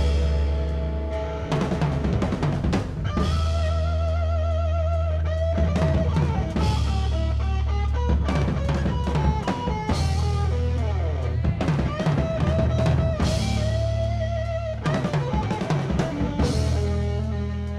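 Live hard-rock band playing: a drum kit beats steadily with cymbal crashes. Under it runs a steady low bass drone, and over it long, wavering held lead notes.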